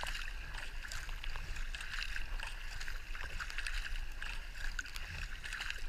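Double-bladed paddles of a two-seat K-2 kayak dipping into calm water, with many small splashes and drips over a steady rush of water.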